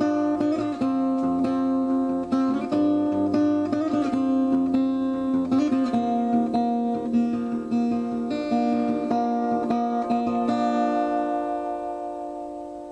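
Outro music: acoustic guitar picking single notes, ending on a held chord that rings and fades out near the end.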